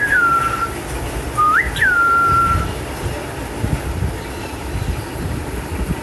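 A male cockatiel whistles twice: each call is a quick rising note that drops back and holds a level tone for about a second. A steady hiss follows.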